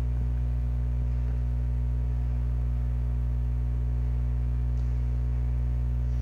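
Steady low electrical hum, a fixed drone with a buzzy overtone that does not change.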